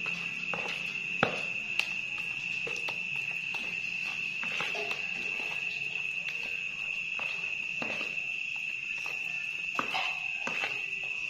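A steady, unbroken high-pitched insect trill, with scattered light knocks and taps, two sharp ones a little over a second in and a few more near the end.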